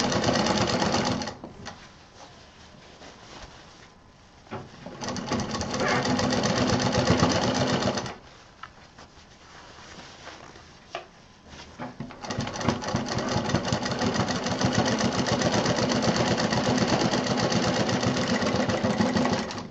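Black domestic sewing machine stitching a zipper into quilted fabric, running in three bursts: briefly at the start, for about three seconds in the middle, and for about seven seconds near the end, with a fast, even needle rhythm. Between bursts it stops and only faint handling of the fabric is heard.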